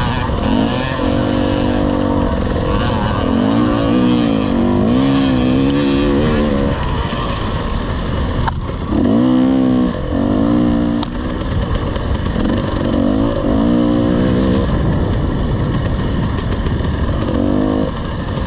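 Off-road motorcycle engine revving hard, its pitch climbing and dropping again and again as the rider accelerates and backs off through a trail section. A couple of sharp knocks come about halfway through.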